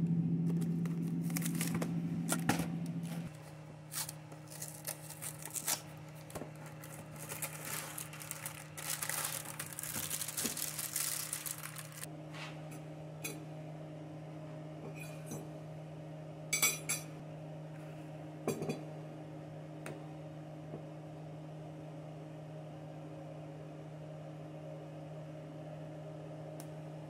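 A plastic food bag crinkling and rustling as it is handled, with scattered clicks and clinks of a plate and cutlery, over a steady low hum that is louder for the first three seconds.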